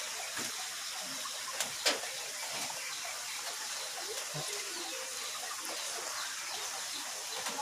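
Steady trickle and splash of water running over the rocks of a small garden waterfall, with a single light knock about two seconds in.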